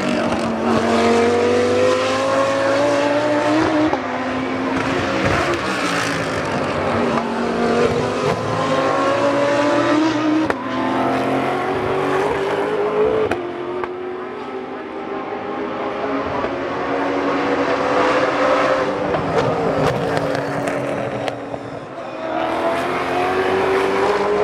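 Several race cars pass one after another, braking hard into a tight corner. Their engine notes fall in pitch as they slow and downshift, then rise again as they power away.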